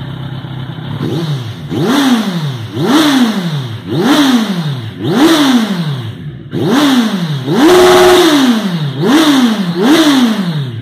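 Kawasaki Z1000 inline-four through an aftermarket sport exhaust, blipped from idle about nine times in quick succession, each rev rising sharply and dropping back, one held briefly at the top about eight seconds in. A deep, thick exhaust note, kept from being very loud by the stock catalytic converter still fitted.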